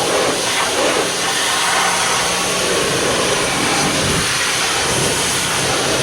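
Steady, loud hissing spray of cleaning equipment working on an air conditioner, with a faint motor hum underneath.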